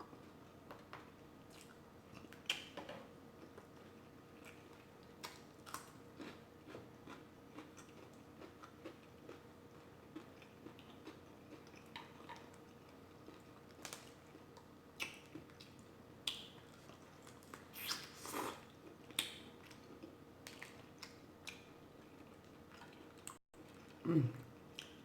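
Close-up eating sounds of a seafood boil being eaten: quiet chewing and biting with scattered short clicks and wet smacks.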